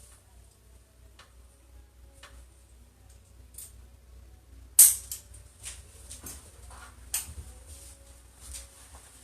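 Sharp clicks and light taps of a chiropractic adjustment. The loudest click comes about five seconds in and another strong one just after seven seconds.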